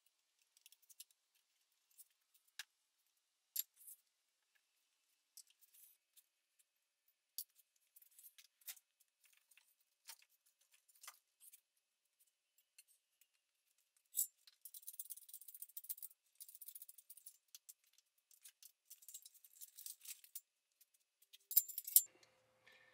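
Faint metallic clicks and clinks of hand tools and engine parts as a cylinder head is unbolted and lifted off, scattered at first, then a denser jangling rattle in the second half.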